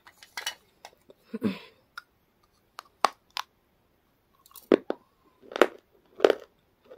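Flaky chips being bitten and chewed: crisp, sharp crunches. They are scattered at first, then louder and more regular in the second half, about two a second.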